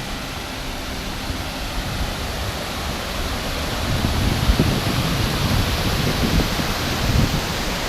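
Steady rush of water from a waterfall on the Big Duck River, a dense hiss with no break. A low rumble grows louder about four seconds in.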